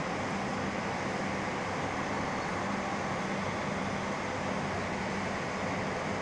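Steady rushing background noise with a faint low hum that fades in and out.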